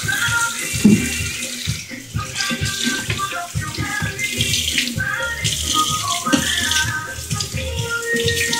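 Background music with a rushing, water-like hiss underneath it.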